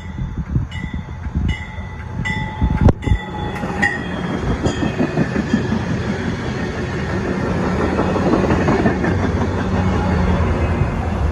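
MARC push-pull commuter train passing close at speed. A bell rings about every three-quarters of a second for the first few seconds, with a sharp clank about three seconds in. Then the coaches rush past with a building rail rumble, and the MP36PH-3C diesel locomotive pushing at the rear drones by near the end.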